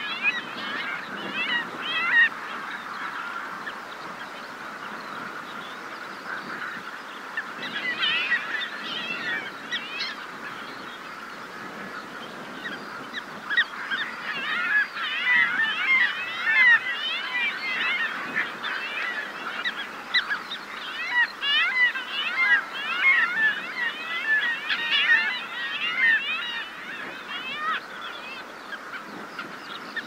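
Several Arctic skuas calling in flight close to the microphone, their calls coming in short bunches about two and eight seconds in and then crowding together thickly from about thirteen seconds until near the end. Beneath them a skylark sings further off over sea wash and wind.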